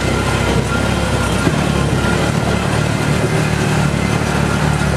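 ATV engine running steadily as the quad climbs a rough, rocky trail.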